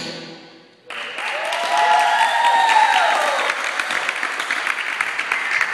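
Music fades out, then about a second in an audience bursts into applause. A voice whoops over the clapping, its pitch falling.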